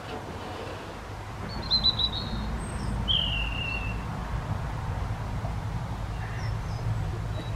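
Birds calling: a short chirping trill about two seconds in, then a single falling whistled note about a second later, over a low steady rumble.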